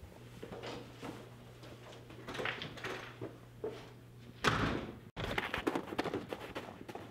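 Hurried footsteps through a house, with a louder door bang about four and a half seconds in, then quick running footsteps across snow.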